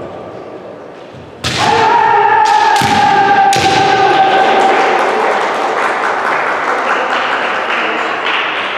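Kendo bout: several sharp cracks of bamboo shinai striking and clashing, with stamping footwork, starting about a second and a half in, over a long held kiai yell that slowly fades toward the end.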